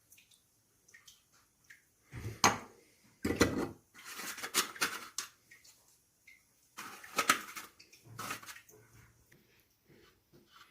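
Metal sev press being filled with besan dough and screwed shut: bursts of clattering and scraping of its metal parts, three main bouts with quiet gaps between.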